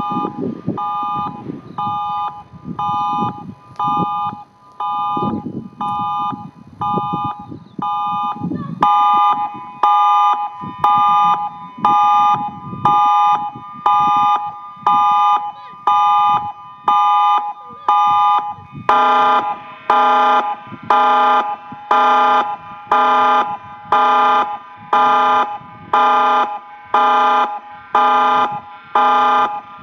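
Electronic warning siren on a pole-mounted cluster of horn speakers, sounding a pulsed, telephone-like multi-tone beep about three times every two seconds. It gets louder in two steps, about a third of the way in and again about two-thirds in.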